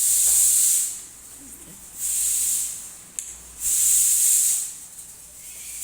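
Steam hissing out of a pressure cooker of rice on a gas stove in rhythmic pulses, about one hiss every two seconds.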